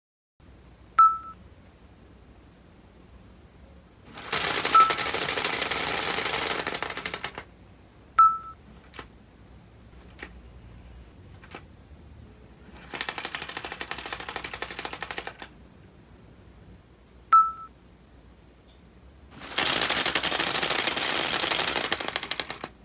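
Split-flap display's paper flaps clattering rapidly as the stepper-motor-driven spools spin through the characters, in three runs of about two to three seconds each. Between the runs come single sharp clicks, each with a brief high ping.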